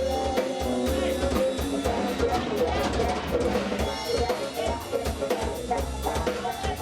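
Live jazz-funk band playing a groove: drum kit with snare, rimshots and bass drum, a bass line, and busy melodic instrument lines over it.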